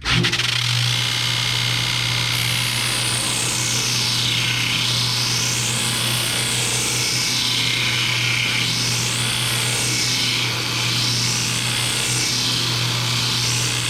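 Dayton 4TJ97 belt and disc sander switched on, its motor running with a steady hum; from about two seconds in a block of wood is sanded on the freshly changed abrasive disc, a continuous loud hiss whose pitch sweeps down and up several times as the block moves across the disc. The new disc cuts much better than the clogged old one.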